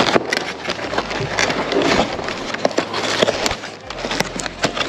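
Cardboard takeout box being handled and opened close up: paperboard scraping and rustling with many short sharp clicks and knocks.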